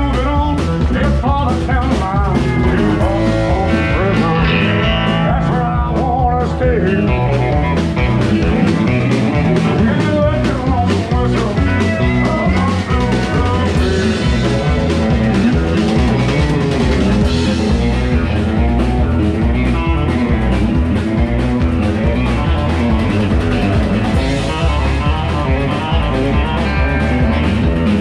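Live country band playing: electric guitar, pedal steel guitar, bass guitar and drum kit over a steady beat.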